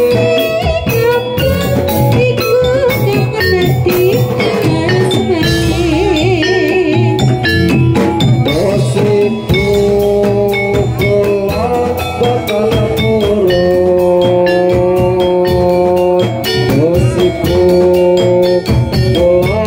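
Live Javanese gamelan music: a wavering sung melody over steady drum strokes and metallophone notes.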